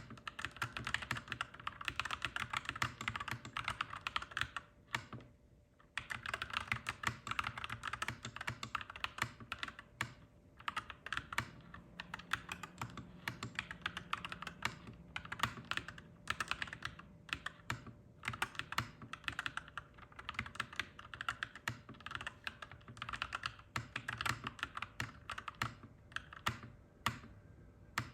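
Clacky mechanical keyboard being typed on in fast, continuous runs of keystrokes, pausing for about a second around five seconds in and briefly a few more times later.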